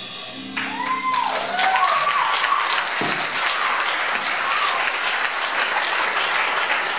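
A small audience clapping and cheering, with a few whoops. The applause starts about a second in, as the last chord of the guitar and drum kit rings away.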